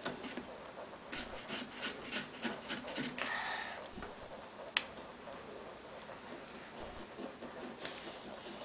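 Small serrated pumpkin-carving saws rasping through pumpkin rind in quick short strokes, with a longer scrape after them and one sharp click about five seconds in.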